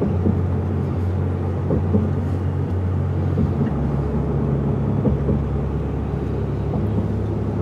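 Engine and road rumble of a car heard from inside the cabin while driving, steady, with the engine note dropping in pitch about halfway through.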